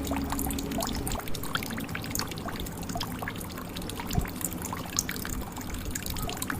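Water trickling and dripping into a jug, with many small drops and splashes in quick succession. A sustained soft musical tone fades out about a second in.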